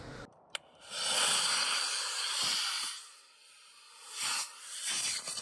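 Model rocket motor burning during launch: a rushing hiss for about two seconds, preceded by a sharp click. The hiss dies away and returns more briefly near the end.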